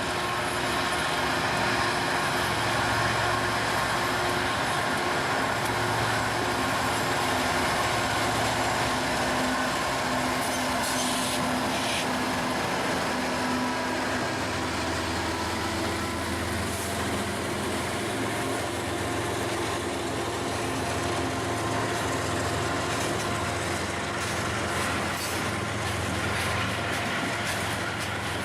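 CSX freight train's diesel locomotives running steadily as the train passes.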